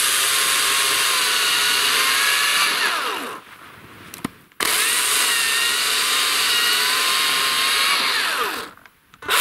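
Greenworks cordless electric chainsaw cutting through a dry, half-rotten pine deadfall log at full speed, its motor whine wavering under load. About three seconds in it spins down with a falling whine. After a short pause it runs through the wood again, then spins down once more near the end.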